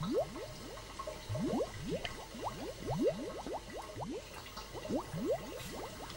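Liquid bubbling in laboratory glassware: a continuous run of quick rising blips, several a second.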